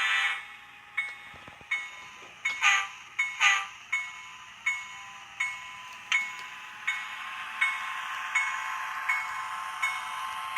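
Digitrax SDH166d sound decoder in a model F3A diesel locomotive: its horn cuts off just at the start, then its bell rings steadily about once every 0.7 seconds over the diesel engine sound, played through the model's small speaker. Two louder, sharper strokes come between about 2.5 and 3.5 seconds in.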